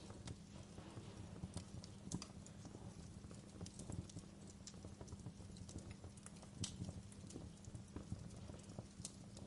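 Campfire burning steadily, with a low rumble and irregular crackles and sharp pops of the burning wood, the loudest pops about two, four and six and a half seconds in.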